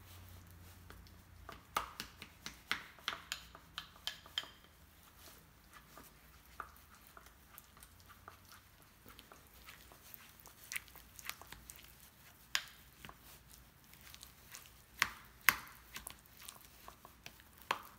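Plastic spoon stirring and mashing avocado in a bowl: irregular clicks and taps of the spoon against the bowl with soft scraping, coming in clusters, the sharpest two about three-quarters of the way through.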